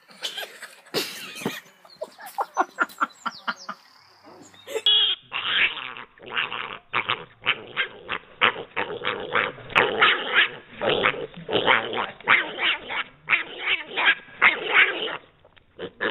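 A dog barking over and over in quick succession, about three or four barks a second. It carries on across a cut to another clip about five seconds in.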